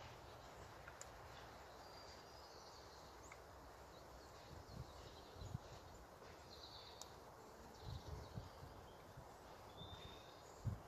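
Quiet outdoor ambience with faint, brief bird chirps and a few soft low thumps in the second half.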